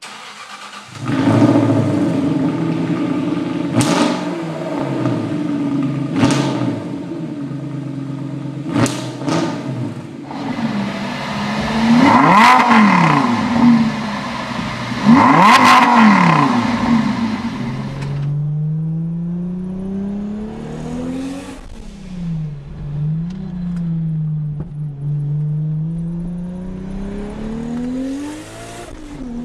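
First a Jaguar XK8 V8 with its forward mufflers deleted, idling with a few sharp cracks; then a Lamborghini Gallardo LP 570-4 Superleggera's V10 revved hard twice, rising and falling each time; then a 1994 Toyota Supra Turbo's engine heard from inside the cabin, accelerating with rising pitch and shifting up through the gears.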